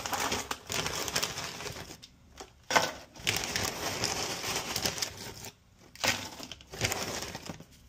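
Plastic bag of Calidad tortilla chips crinkling as it is handled, and chips rustling and crunching as they are tipped into a bowl, with a sharp click almost three seconds in.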